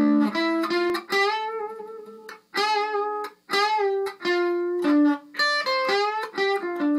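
Electric guitar playing a single-note lead lick in 10th position, note by note with short breaks between phrases. It includes string bends that curve the pitch up, and a quick slide out of position and back in.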